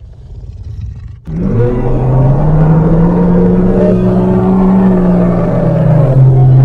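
Giant monster roar sound effect: a low rumble builds for about a second, then breaks into a loud, deep, sustained roar that sweeps briefly upward at its onset and holds steady.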